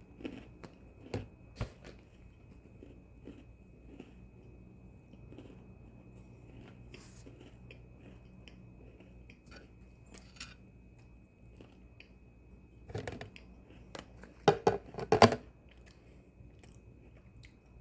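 Someone chewing and crunching an Oreo sandwich cookie with the mouth close to the microphone, in scattered small crunches, with a few louder bites near the end.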